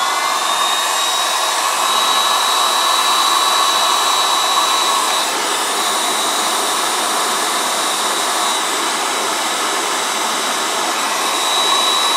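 Electric hot-air heater blowing steadily: a rush of air with a high motor whine that settles to full speed in the first moments. It is heating a cut in a rubber boot to drive out trapped water.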